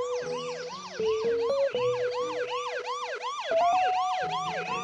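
Cartoon fire engine's siren wailing up and down in quick sweeps, about three a second, over background music.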